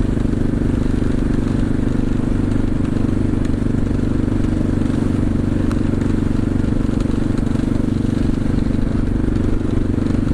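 CCM DS 644's big single-cylinder four-stroke engine running at a steady road speed, its exhaust note even with no change in revs.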